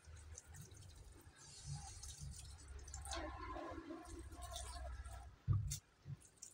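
Water pouring from a plastic watering can into the soil of potted plants, with faint handling rumble. A single thump comes near the end.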